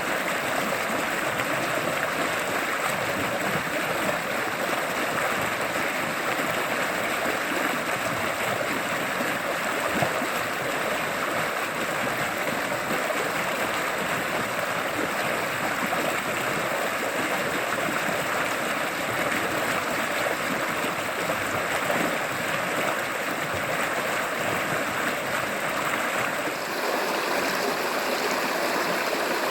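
River water flowing in a steady, continuous rush, its sound shifting slightly near the end.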